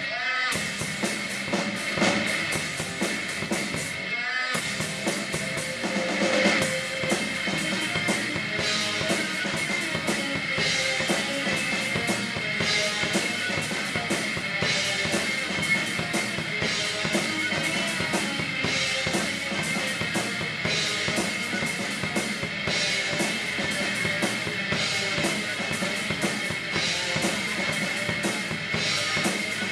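Sonor drum kit played in a steady rock beat: bass drum, snare and cymbals, with a cymbal accent about every two seconds. The sound drops out briefly twice in the first few seconds.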